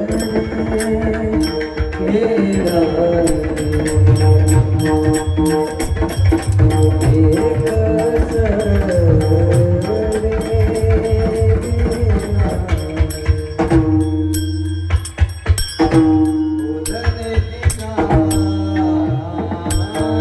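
Devotional kirtan music: a gliding melody held over hand-drum playing and frequent sharp cymbal-like strikes. About two-thirds of the way through, the melody thins briefly, leaving mostly drums and strikes, then returns.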